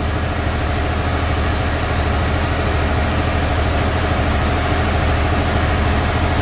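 International MaxxForce 13 inline-six diesel running steadily at a raised idle of about 1,600 RPM during a parked, forced DPF regeneration, with a steady hiss over the low engine rumble.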